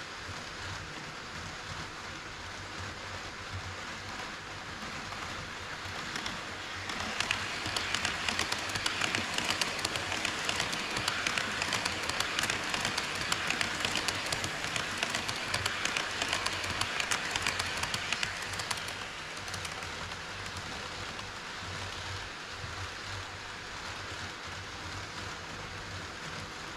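HO-scale model train running on KATO Unitrack, a steady fine rattle of wheels on rail with rapid clicking. It grows louder about seven seconds in and eases back about twelve seconds later.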